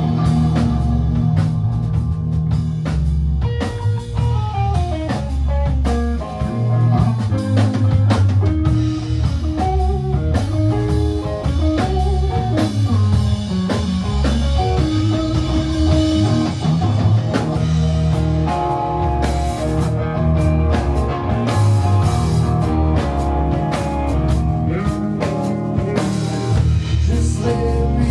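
Rock band playing a swamp-rock song: electric guitar lines over heavy bass and a drum kit with regular drum and cymbal hits.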